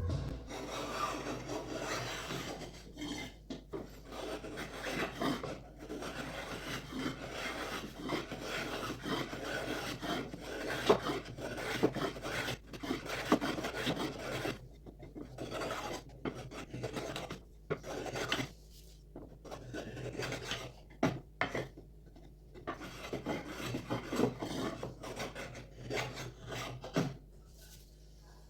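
Hand filing of a sonokeling (Indonesian rosewood) saw handle: repeated scraping strokes of a rasp or file on hardwood, in an uneven rhythm with a few short pauses, as the handle is shaped.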